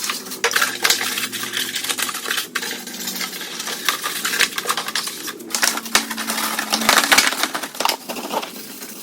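Hands-on cleaning of a lawn tractor with degreaser: irregular scrubbing and scraping with many light clicks and clinks.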